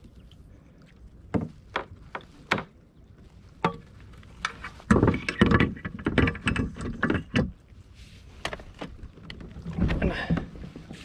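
Handling noise in a plastic kayak: scattered knocks and taps on the hull, then a few seconds of denser clatter and water sloshing about halfway through, as a fish is held over the side in the water to revive.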